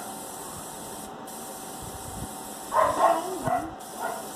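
Steady hiss of air through a 0.2 mm airbrush spraying thin lines of water-based paint. The air stops briefly about a second in and again near the end. About three seconds in, a short pitched whining call sounds over it, louder than the hiss.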